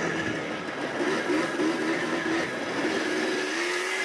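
Yamaha Blaster's 200cc-class two-stroke single-cylinder engine running as the freshly rebuilt ATV is ridden, its note wavering up and down with the throttle.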